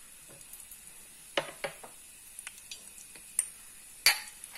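Peanuts, roasted gram and cashews frying in ghee in a steel pan: a faint steady sizzle with a few sharp clicks and lighter ticks, the loudest click about four seconds in.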